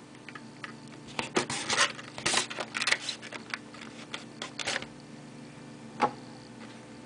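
Product packaging being handled and opened by hand, with a run of clicks, scrapes and rustling for a few seconds. A single sharp knock about six seconds in.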